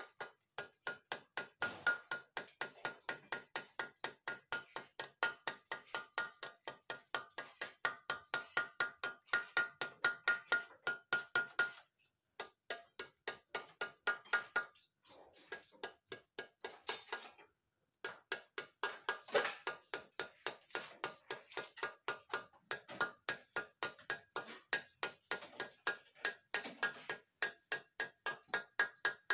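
Hammer blows on a steel bar set in a cylinder bore of an Isuzu Panther diesel engine block, working a cylinder liner. The blows come steadily at about three a second, each ringing metallically, with a short pause partway through.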